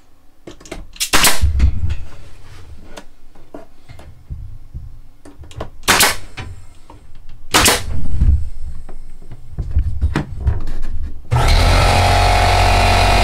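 Knocks and clunks of boards and hand tools being handled, with a few loud sharp strikes. Near the end a power tool starts and runs steadily.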